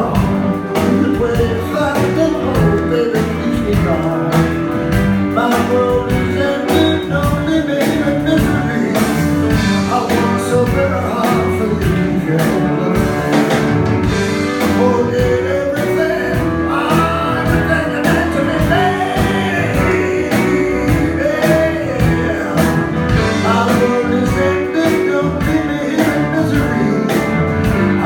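A live rock band playing loudly: electric guitars, bass and drums, with a male singer singing into a microphone over them.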